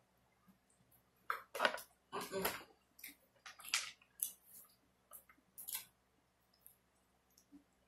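A person eating: a cluster of loud, wet chewing and smacking noises starting about a second in, then sparser mouth clicks and smacks that thin out past the middle.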